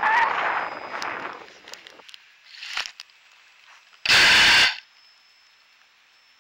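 Onboard-camera audio of a small RC plane: rushing air and motor noise as it flies low, dropping away about two seconds in as the plane comes down in the grass. About four seconds in, a loud half-second rush of noise, then only a faint hiss with a thin steady high whine.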